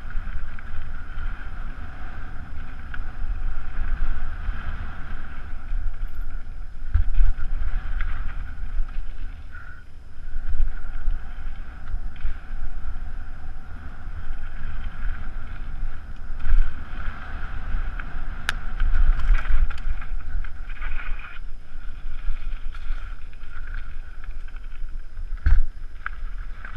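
Wind rushing over a helmet-mounted camera's microphone as a mountain bike descends a rough dirt singletrack, with the tyres and bike rattling over the ground and a few sharp knocks from bumps.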